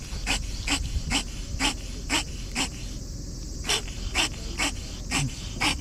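A cat licking paste treat from a squeeze tube: quick wet licking clicks about twice a second, with a short pause about halfway through.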